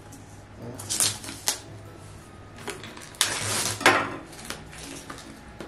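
Cardboard and plastic packaging being handled and opened by hand: a few sharp clicks and taps, with a short scraping rustle about three seconds in.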